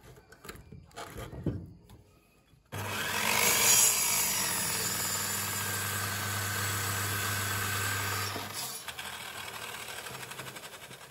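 Handling knocks and rustles as the bamboo is set against the saw fence, then an electric miter saw starts abruptly about three seconds in and its toothed blade cuts through the fibrous root mass at the base of a green bamboo culm for about six seconds. Near the end the sound drops and fades as the blade runs down.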